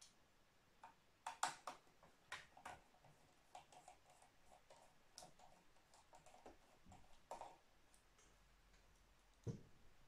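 Faint, irregular clicks and ticks of a Phillips screwdriver working a screw out of a metal stand. They are densest early in the stretch, and a duller soft knock comes near the end.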